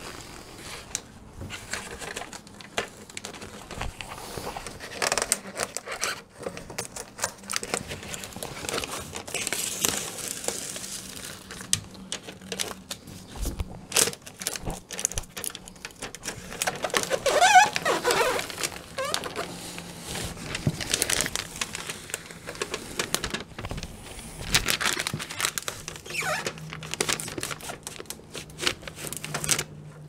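Aluminium foil tape being handled and smoothed down by a gloved hand, crinkling and rustling irregularly, with a louder, squeakier stretch a little past the middle. The tape is being pressed over freshly injected expanding foam to seal the refrigerator's cooling-unit enclosure.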